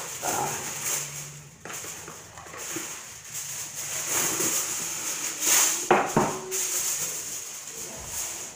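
Aluminum foil crinkling and rustling as it is pulled and pressed over a pan, with a louder crackle about six seconds in.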